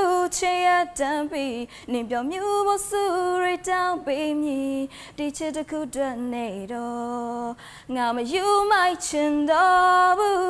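A woman singing a cappella, a single unaccompanied voice holding long notes with vibrato.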